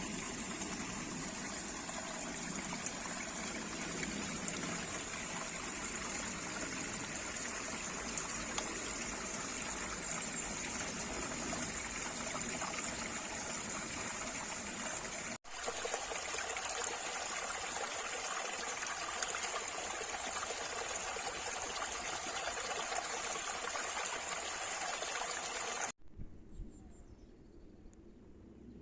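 Small stream of water trickling and flowing steadily. The sound cuts off sharply twice, resuming in a slightly different form after the first cut; after the second, a few seconds before the end, only a much quieter outdoor background remains.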